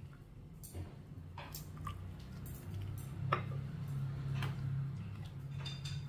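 Scattered light clicks and knocks of food and serving utensils against a ceramic soup bowl as fish roe is put into the sour soup, about six in all, over a steady low hum.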